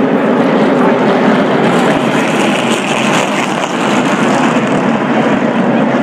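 NASCAR Truck Series race trucks' V8 engines running as the field circles the speedway, plausibly at reduced speed under caution. It is a loud, steady drone of many engines, a little brighter for a couple of seconds in the middle.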